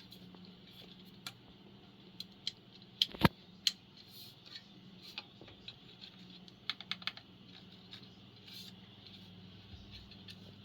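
Keystrokes on a Keychron Q1 aluminium mechanical keyboard: scattered single key presses, one sharper clack about three seconds in and a quick run of several near seven seconds, over a faint steady hum.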